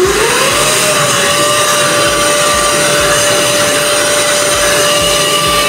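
Automatic jet-type hand dryer, triggered by hands in its slot: the motor spins up with a rising whine over the first half-second, then runs at a steady high whine over a loud rush of air.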